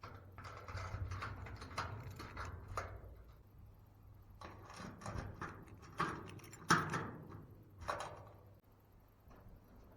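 Workshop handling noises: a run of clicks, knocks and scrapes, with three sharper knocks in the second half.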